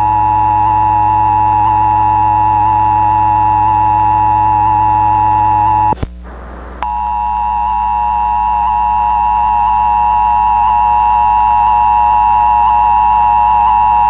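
Emergency Alert System attention signal: the steady two-tone alert (853 and 960 Hz sounded together) blaring from a VHS recording of a cable-system test, with a low hum underneath. It drops out for under a second about six seconds in, then resumes.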